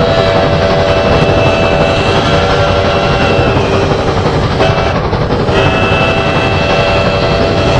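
Loud made-up monster sound built from train sounds: several steady whistle-like tones held together over a dense rumbling noise. The tones drop out for about a second past the middle and come back.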